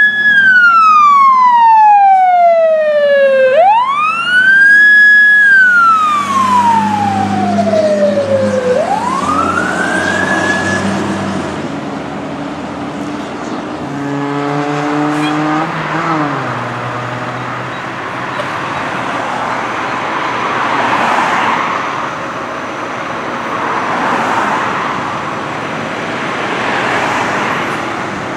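Fire truck siren on wail, sweeping up quickly and falling slowly three times before cutting off, over the truck's engine. About halfway through comes a horn blast lasting about two seconds. After that, passing road and traffic noise swells and fades.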